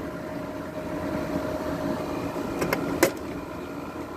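12,000 BTU Frigidaire window air conditioner running with a steady hum. About two and a half to three seconds in come a few sharp clicks, the last one the loudest.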